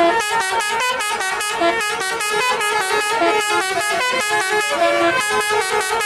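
Tour bus telolet horn, a Basuri multi-tone musical air horn, playing a fast melody of short notes that step rapidly up and down in pitch without a break.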